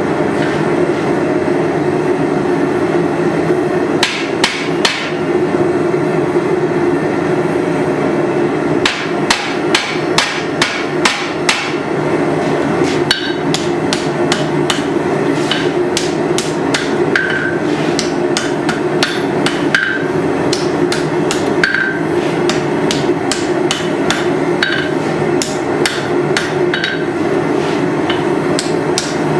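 Hammer blows on hot steel at an anvil while forging a tomahawk head: a few strikes about four seconds in, a fast run of blows around ten seconds, then a steadier run of strikes, several with a short ring, until near the end. A steady roar runs underneath.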